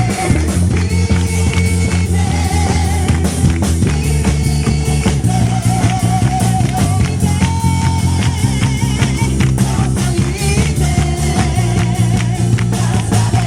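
Song with a sung melody over guitar, bass and drums, keeping a steady beat.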